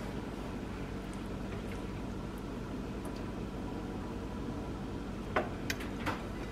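Steady low hum in the background, with three light clinks a little past five seconds in as a wooden spoon and a plate knock against a nonstick skillet.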